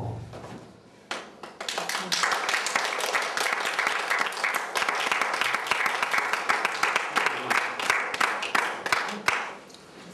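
A small audience applauding: many hands clapping, starting about a second in after the music dies away, and thinning out near the end.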